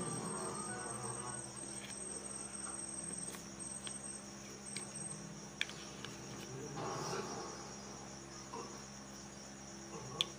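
A few light clicks and taps of a metal fork against a plastic mould as cubes of steamed egg are prised out. Behind them runs a faint, steady, high-pitched trill that breaks up and stops about halfway through.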